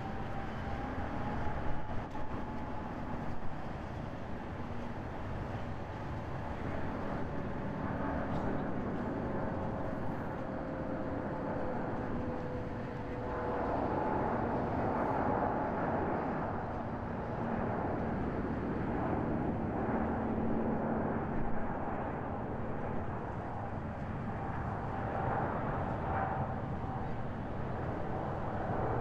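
Airbus A350-900's Rolls-Royce Trent XWB jet engines at takeoff thrust on the takeoff run: a steady jet noise with a whine that slowly drops in pitch, the noise growing louder about halfway through.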